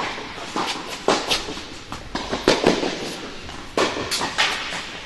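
Tennis balls struck by rackets and bouncing on an indoor hard court during a rally: a string of sharp pops, irregularly a quarter second to a second apart, echoing in the hall.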